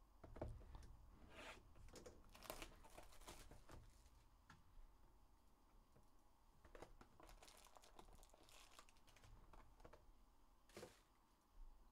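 Faint handling of a cardboard trading-card hobby box being opened, with its foil packs crinkling. Scattered scrapes, taps and crinkles, busiest in the first few seconds, with a sharper crinkle near the end.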